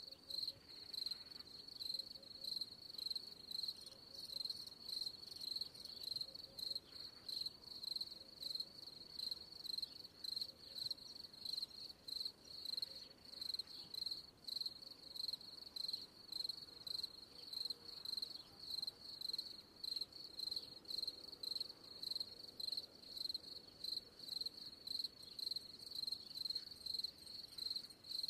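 Crickets chirping: a steady high-pitched chirp repeating about twice a second.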